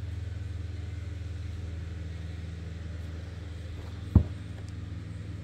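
Steady low hum throughout, with one sharp knock about four seconds in as the well pump motor's armature is set down on a metal workbench.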